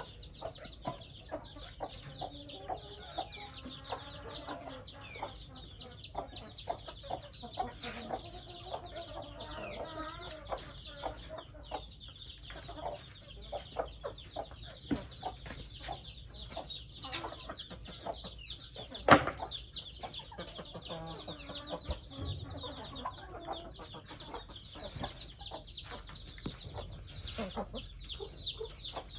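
A flock of chickens clucking, with a dense, continuous chorus of rapid high cheeps over the lower clucks. A single sharp knock comes about nineteen seconds in.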